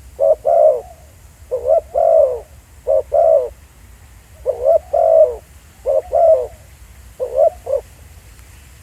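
Spotted dove cooing: six short phrases of two or three deep coos each, a phrase every second or so, stopping shortly before the end.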